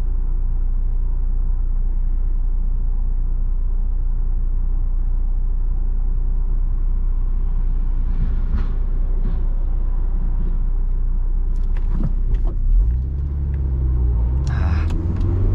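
Honda S2000's JDM F20C four-cylinder engine and road noise heard from inside the cabin while driving, a steady low rumble. Near the end there are a few clicks, and the engine note comes up louder and rises as the car pulls harder.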